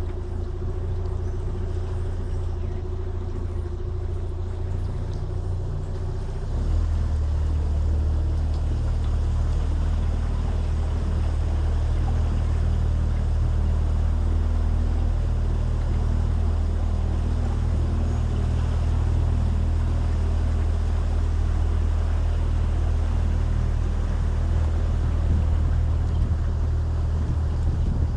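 Small boat's motor running steadily with a low hum; about six and a half seconds in, its note shifts and it runs louder.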